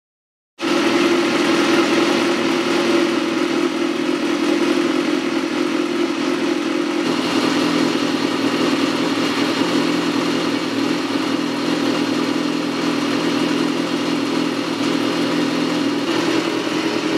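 BMW S1000R's inline-four engine idling steadily through its slip-on exhaust, with a slight shift in its note about seven seconds in.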